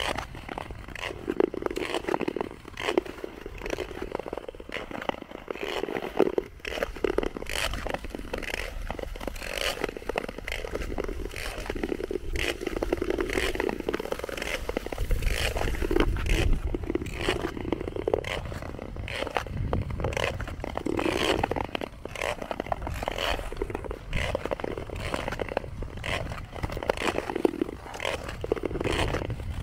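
Ice skate blades scraping and gliding on frozen lake ice, stride after stride, with a swell of blade noise every second or so.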